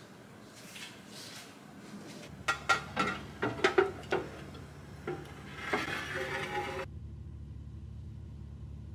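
Clear plastic cake dome being handled and fitted onto its base: a quick run of sharp clicks and knocks with a brief ringing, cut off abruptly near the end. A steady low hum runs underneath.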